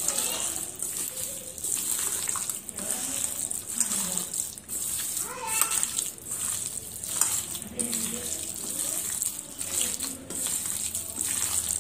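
Wet squelching of a bare hand kneading raw chicken pieces in a thick curd-and-masala marinade in a steel bowl, in uneven, irregular strokes.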